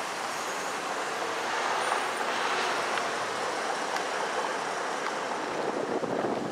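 Street traffic and a PCC streetcar rolling along its rails: a steady rushing noise that swells a little about two seconds in, with a few faint clicks.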